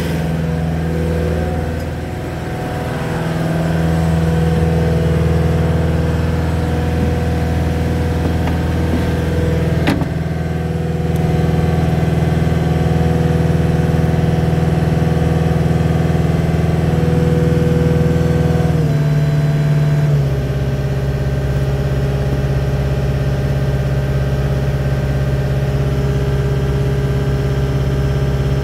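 Diesel engine of a Cat 246D skid steer loader running steadily, with a single sharp click about a third of the way in. The engine note shifts about two-thirds of the way through, then settles again.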